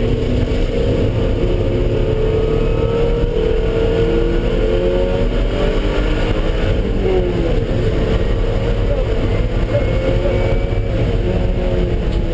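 Car engine running at speed on a race track, its pitch rising and falling slowly as the revs change, over a heavy steady rumble of road and wind noise.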